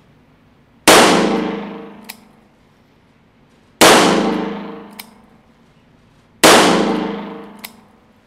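Three .38 Special shots from a Taurus 856 revolver fired single action, spaced about three seconds apart, each with a long echoing decay off the range walls. A light click about a second after each shot as the hammer is cocked for the next one.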